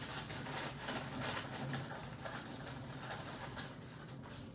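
Rustling and light knocking of objects being handled and moved about, over a low steady hum.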